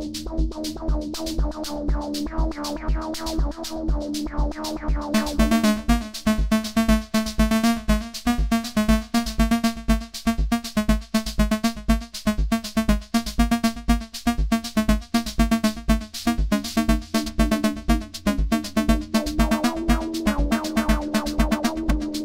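Leploop analogue synth and drum machine running a sequenced techno loop through a Strymon Timeline delay: a steady kick pulse under a stepping bass line. About five seconds in the sound turns much brighter and buzzier as the filter opens, then mellows again near the end.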